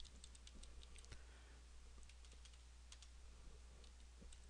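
Faint, irregular keystrokes on a computer keyboard as a short word is typed, over a steady low hum.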